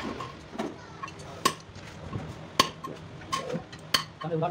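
Sharp metal clinks and taps of hand tools on engine parts, about five separate strikes spaced roughly a second apart, each with a short ring.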